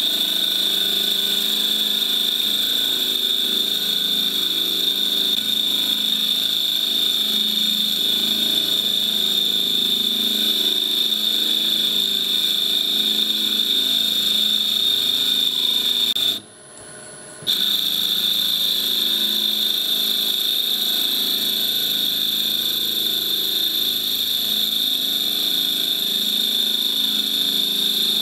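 CNC mill spindle turning a burl-wood ring blank while a boring bar cuts its inner bore: a steady machine run with a constant high whine. It cuts out for about a second partway through, then resumes the same.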